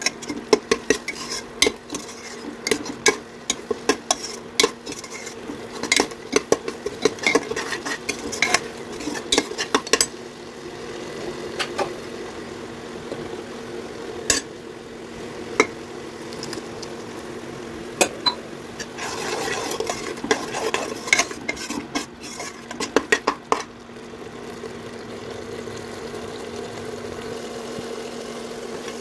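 Steel slotted spoon scraping and clinking against a non-stick pressure cooker while stirring thick chole gravy, with a low sizzle underneath. The clinks come in quick runs for the first ten seconds and again around twenty seconds in; over the last few seconds only the sizzle is left.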